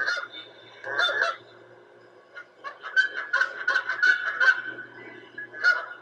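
Honking bird calls, goose-like: a call right at the start, another about a second in, a fast run of honks in the middle, and one more near the end.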